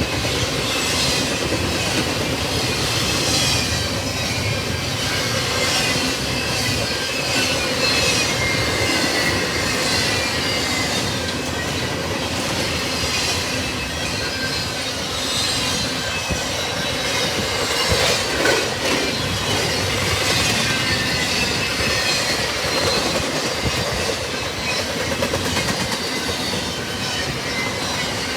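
Double-stack intermodal freight cars rolling past. Steel wheels squeal in falling high-pitched tones over a steady clatter on the rails, surging every couple of seconds as each car goes by. A sharper clank comes about 18 seconds in.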